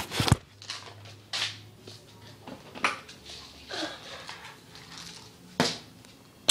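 Handling noises: a sharp knock at the start, then scattered soft rustles and light taps, as supplies such as the pellet jar are picked up and moved.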